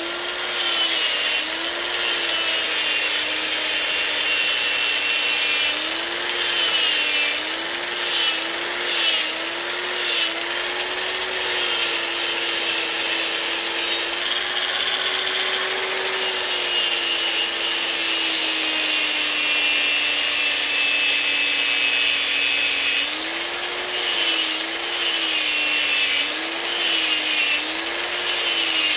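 Electric angle grinder running steadily while its wheel grinds down the welded seams of a brass stove fuel tank. The motor's whine dips in pitch again and again as the wheel is pressed into the metal: many times over the first ten seconds, more evenly through the middle, and again near the end.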